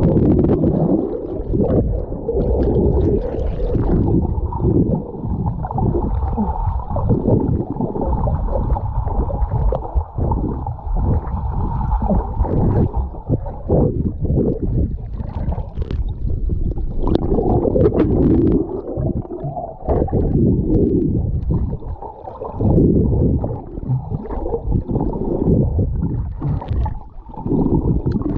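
Paddling in an inflatable kayak: water sloshing and gurgling around the paddle and hull, over a dense low noise that swells and fades throughout.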